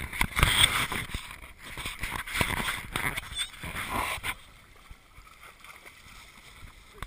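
Camera handling noise and wind buffeting on the microphone, a rumbling rush with irregular knocks. It stops abruptly about four seconds in, leaving only faint water sloshing as a dog wades through a shallow muddy stream.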